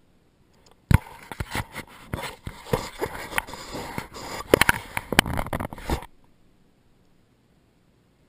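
Close handling noise from a hand and jacket sleeve rubbing and knocking against the mounted action camera: a loud scraping rustle full of sharp knocks that starts suddenly about a second in and stops abruptly about five seconds later.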